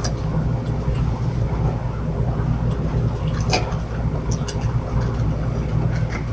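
Steady low room hum and rumble with a few short, scattered clicks, the sharpest about halfway through.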